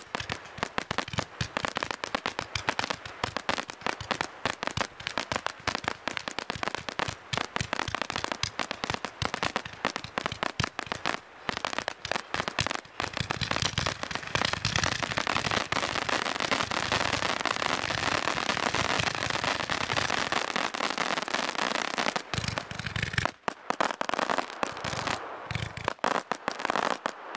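Fireworks display: a rapid barrage of aerial shell bangs and crackling. Midway it merges into an almost continuous crackle, then thins to separate bangs with short gaps near the end.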